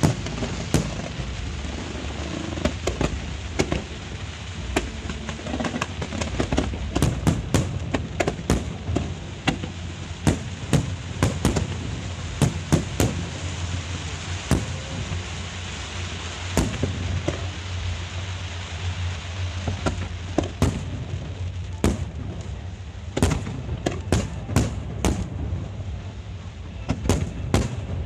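Fireworks display: aerial shells bursting in a rapid, irregular series of sharp bangs over a continuous low rumble, the bangs coming thickest in two flurries, near the middle and again toward the end.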